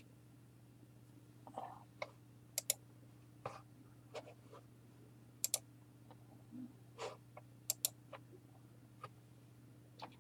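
Scattered light clicks and taps at irregular intervals, a dozen or so, over a faint steady low hum.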